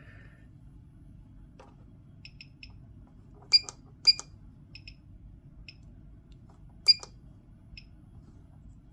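Sharp clicks and short high beeps from buttons and knobs on bench test equipment being operated. Three loud click-beeps stand out among several fainter ticks, over a low steady hum.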